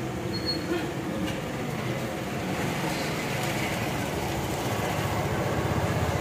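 Steady roar of a gas burner under a large iron karahi of curry at a rolling boil, the liquid bubbling as a ladle stirs it; it grows a little louder near the end.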